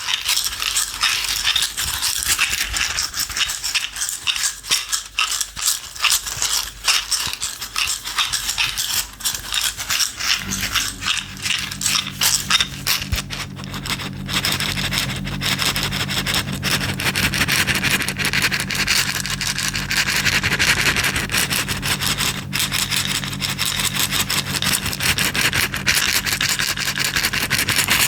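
Small loose objects rattling in a container, shaken fast and steadily as one continuous, dense, hissing rattle. About ten seconds in, a low steady hum starts beneath it.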